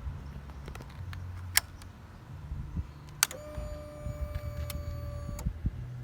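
Click of a KTM RC200's ignition key being switched on, then a steady electric buzz at one pitch for about two seconds that cuts off sharply: the fuel pump priming before the engine is started.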